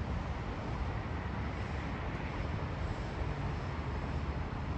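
Jet airliner engines at takeoff power during the takeoff roll, heard as a steady low rumble with a hiss of jet noise above it.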